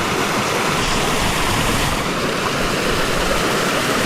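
A seasonal waterfall pouring down close by: a steady, unbroken rush of falling water.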